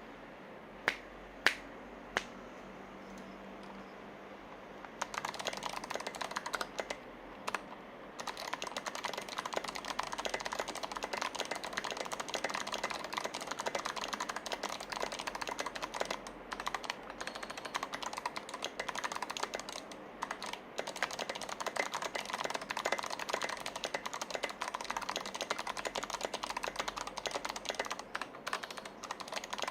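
Kira96 mechanical keyboard with lubed Kailh BOX Jade clicky switches being typed on. A few single key presses in the first couple of seconds, then fast continuous typing from about five seconds in, a brief pause, then steady clicking keystrokes. Really loud.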